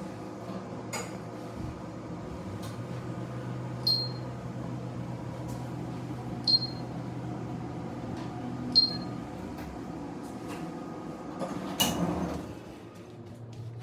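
Steady low hum of a small indoor room. Three short high beeps come about two and a half seconds apart, with scattered faint clicks, and there is a louder knock near the end.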